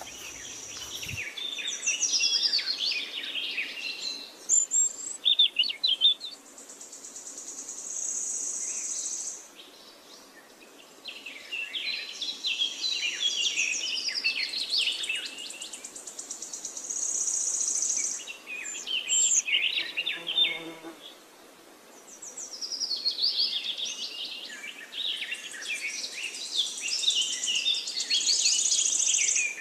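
Wild birds singing and chirping in busy stretches over a high, steady insect drone that swells and fades every several seconds.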